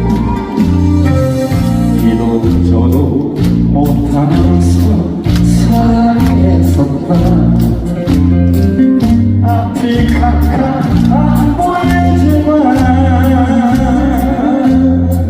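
Korean trot music playing, with a steady bass beat of about one stroke a second under a melody line.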